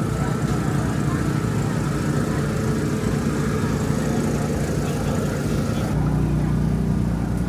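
An engine running steadily with a low, even hum that grows a little louder about six seconds in.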